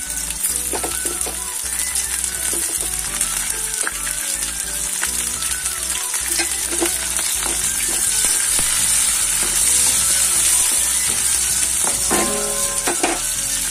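Green peas, carrot strips, onion and green chillies sizzling steadily as they fry in hot oil in a kadai, with the clicks and scrapes of stirring.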